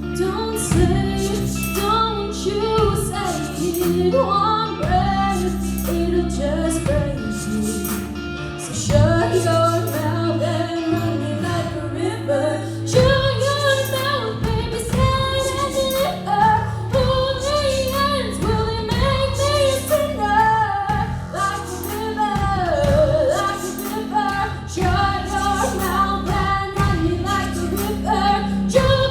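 A woman singing a song with instrumental accompaniment: a melodic vocal line over sustained low bass notes and a steady rhythm.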